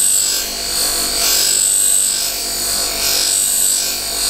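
Bench buffing machine running with a felt wheel charged with polishing compound, a steel travisher blade's inside bevel held against it: a steady high hiss of the blade on the wheel over the motor's hum. This is stropping, taking the burr off the freshly ground edge.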